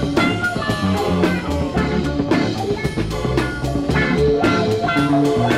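Recorded funk dance tune: guitar, bass and drum kit playing a steady beat.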